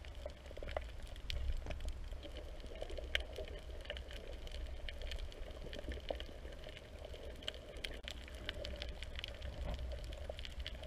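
Underwater ambience heard through an action camera's waterproof housing: a muffled, steady rumble of moving water with many scattered sharp clicks and crackles.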